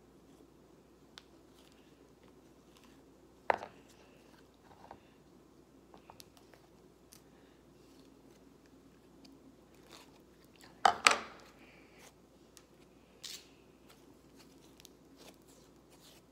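Thick yellow slime being scooped out of a clear plastic tub by hand and squeezed, giving scattered soft sticky clicks and crackles. Two louder sharp pops or knocks stand out, the first about three and a half seconds in and a stronger one about eleven seconds in.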